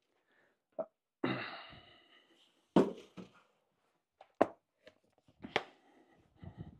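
Off-camera handling noises: a few separate sharp knocks and taps of hard objects being picked up and set down, the loudest about three seconds in, with a short rustle just after a second in and small clicks near the end.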